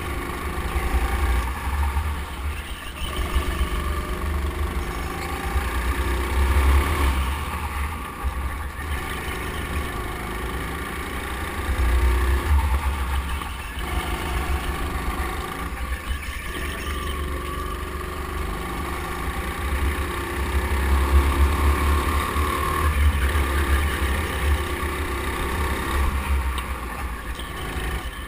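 Go-kart running a lap, recorded on board, its motor note climbing on the straights and dropping back in the corners every few seconds over a heavy low rumble.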